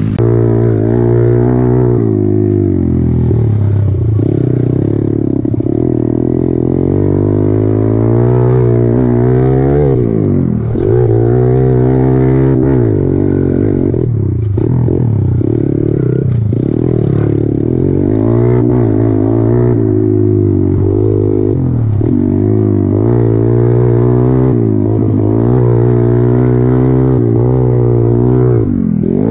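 Kawasaki KLX110 pit bike's small single-cylinder four-stroke engine being ridden hard, revving up and dropping back again and again as the throttle is worked and it shifts.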